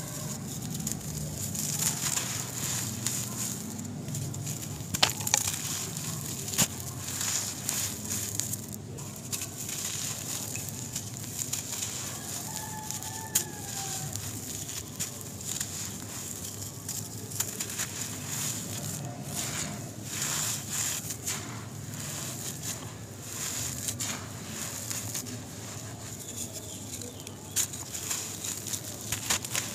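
Dry lumps of brown dirt crushed and crumbled by hand onto a tiled floor: gritty crunching with sharp crackles and the patter of falling grit. A bird calls faintly in the background about halfway through.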